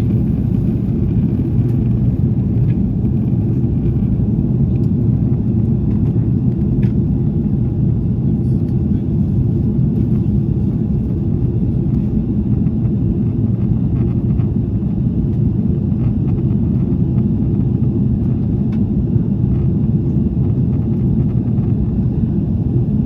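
Steady low drone inside the cabin of an Airbus A330-300, the engines and airflow heard from a window seat toward the rear, with a few faint clicks.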